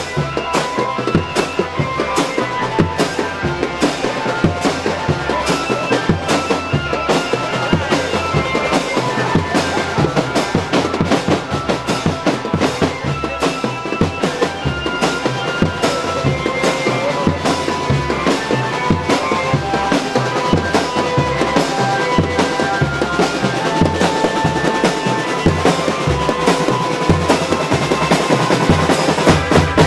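Marching drum band playing: bass drums and snare drums beat a steady, repeating rhythm, with a melody held over it.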